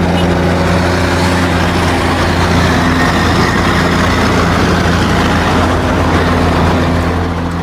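Heavy diesel engine running steadily at a low, even note.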